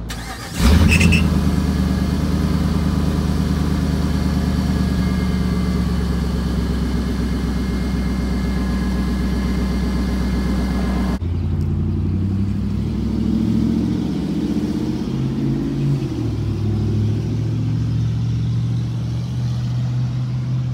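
2011 Ram 2500's 5.7 L Hemi V8 starting about half a second in and then idling steadily. About halfway through the sound changes abruptly to another stretch of idling, with a pitch that wavers a little.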